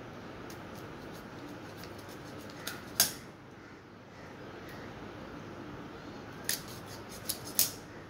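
Sharp snipping clicks of raw chicken being sliced against a boti's fixed curved blade: one loud snip about three seconds in and three more close together near the end, over a steady low room hiss.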